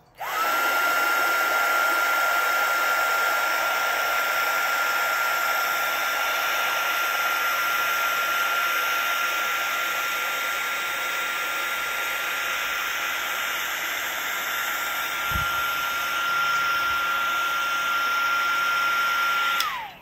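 Wagner HT400 heat gun running: a steady rush of fan air with a thin, steady whine that rises as it switches on and falls away as it switches off just before the end. It is blowing across wet epoxy resin to push the white pigment into wave shapes.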